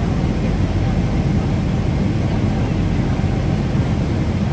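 Steady cabin noise inside a Boeing 747-400 in its climb: the engines and the air rushing past the fuselage make an even, low rumble.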